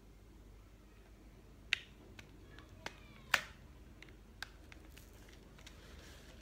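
A few sharp clicks and taps from hands handling a small Tamagotchi box and its packaging, the two loudest about a second and a half apart.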